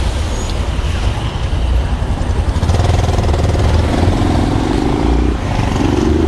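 Motorcycle engine accelerating, its pitch rising, with a short break about five seconds in as it changes gear, then rising again. Heavy wind rumble on the microphone underneath.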